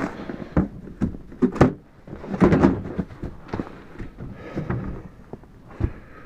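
Storage cabinet doors being opened and shut: several sharp knocks and thuds with handling noise in between.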